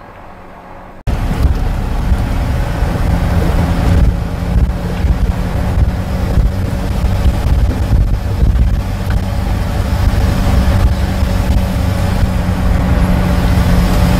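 Vehicle running along a rough concrete forest road, heard on board: a steady low engine drone with road and tyre rumble. It starts abruptly and much louder about a second in, after a quieter stretch.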